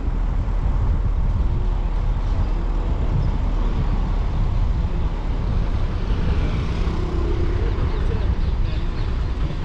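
Wind buffeting the microphone of a moving vehicle, with road rumble: a steady, even, low rumble.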